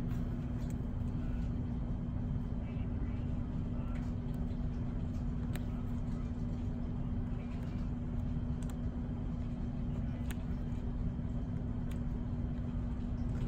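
Steady low office background hum with a constant tone, with a few faint, scattered clicks.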